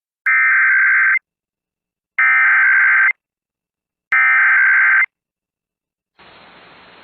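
Emergency Alert System SAME header: three identical bursts of buzzy digital data tones, each just under a second long with about a second's silence between. This coded header opens a broadcast alert. A faint hiss comes in near the end.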